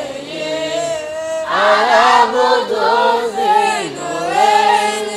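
Choir of children chanting an Islamic devotional nasheed in unison, drawing out long, wavering held notes without clear words, growing louder about a second and a half in.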